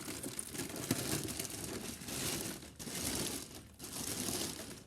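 Plastic packaging crinkling and rustling as it is handled and pulled off a sewing machine, uneven with a couple of brief lulls.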